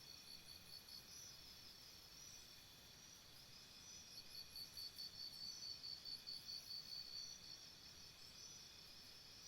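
Faint jungle insect chorus: a high chirping trill pulsing a few times a second, stronger in the middle, with fainter, higher chirps above it.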